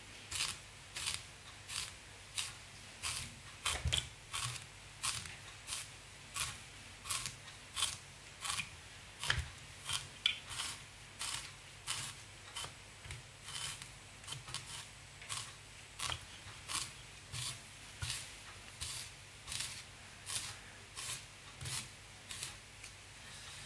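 Bristle brush raked repeatedly through the synthetic fibres and flash of an articulated streamer fly, brushing the body out: short scratchy strokes, a little under two a second.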